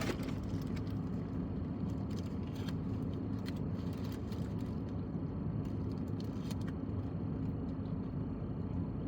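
Steady low rumble of a car heard from inside the cabin, with a constant hum, and a few faint clicks on top.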